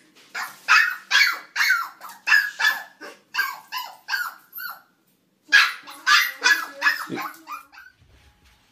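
A small puppy yapping in a fast run of short, high-pitched barks, about three a second, with a brief break about halfway; the barks stop near the end. It is barking at its own reflection in a mirror.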